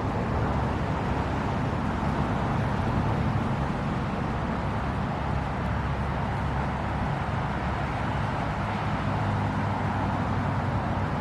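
Steady rumble of road traffic, a low engine hum under a wash of road noise.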